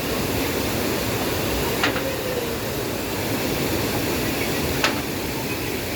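Waterfall rushing steadily, with two short sharp clicks about two and five seconds in.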